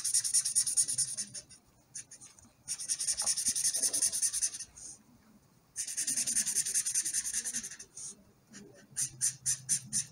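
Felt-tip marker scribbling on paper in quick back-and-forth colouring strokes. It comes in three runs of about two seconds with short pauses, then turns to separate strokes about four a second near the end.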